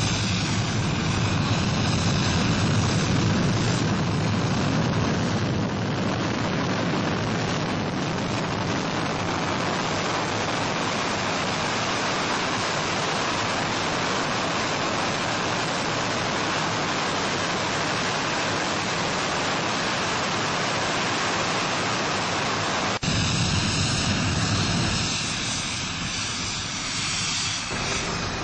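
Jet engine running in afterburner: a loud, steady, dense noise. About 23 seconds in the sound changes abruptly to a slightly louder stretch, then eases off near the end.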